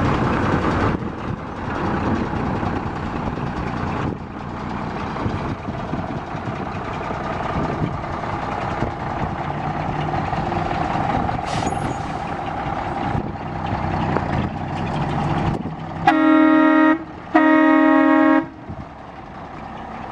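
International DT466 inline-six diesel of a 1985 International S1900 truck running, then the truck's horn sounded in two blasts about a second long each near the end.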